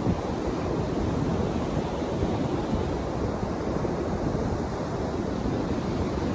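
Ocean surf rolling in and breaking on a sandy beach: a steady wash of noise, with wind buffeting the microphone in low rumbling gusts.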